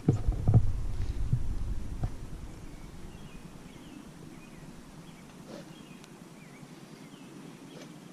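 A few knocks and a low rumble in the first two seconds, like the microphone being handled or buffeted by wind. Then faint outdoor background with scattered bird chirps.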